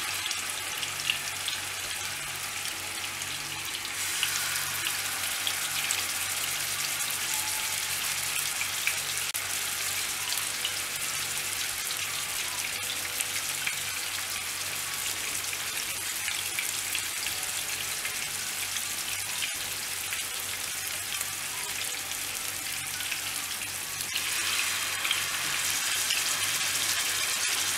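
Marinated sea bass pieces sizzling and crackling in olive oil on a flat tawa, a steady frying sound that gets a little louder about four seconds in.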